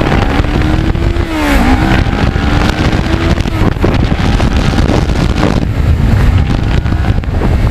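Kawasaki Ninja 650R's parallel-twin engine running under way, mixed with heavy wind rumble on the microphone. The engine note dips about one and a half seconds in, then climbs again.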